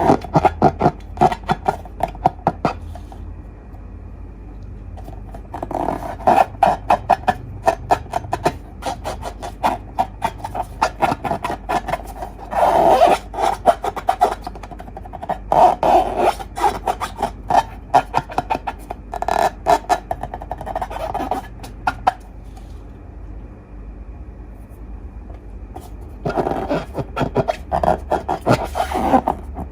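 Slime being squeezed and worked by hand, giving bursts of dense wet crackling and clicking, with two pauses where it goes quieter.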